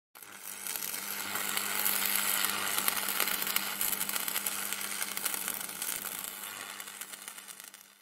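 Static-like hiss and dense crackle over a steady low hum, an intro sound effect; it swells up in the first couple of seconds and fades away over the last two.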